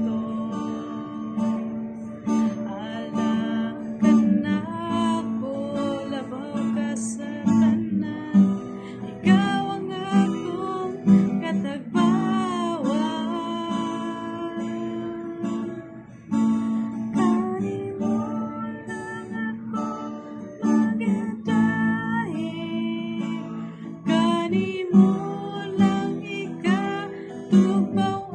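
A woman singing a slow song to her own strummed acoustic guitar, her voice gliding over the steady chords.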